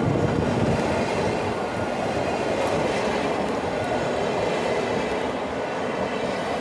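Chichibu Railway's vintage passenger coaches rolling past at close range, their wheels running on the rails in a steady rumble that slowly fades as the last coaches go by.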